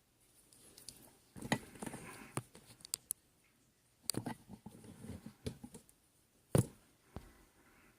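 Small clicks, taps and light scraping from handling the gutted lock's parts and tools, in a few short clusters, with one sharper click a little past three-quarters of the way through.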